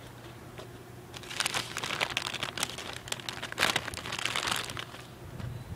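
Plastic grape bag crinkling and rustling as a hand rummages in it to pull out green grapes, starting about a second in and stopping shortly before the end.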